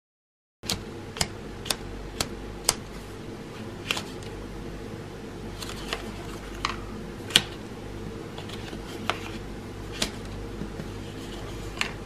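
Origami paper being folded and creased by hand, starting about half a second in: sharp crackles at irregular moments as the creases are pressed, over a steady low hum.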